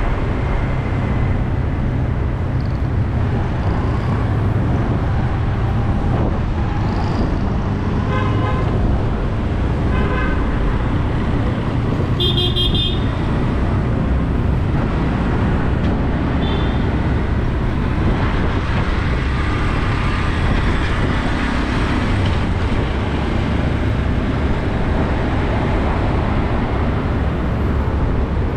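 Steady city traffic noise heard from a bike moving along the street, with vehicle horns tooting several times: short honks about a third of the way in, and a loud high-pitched horn blast near the middle.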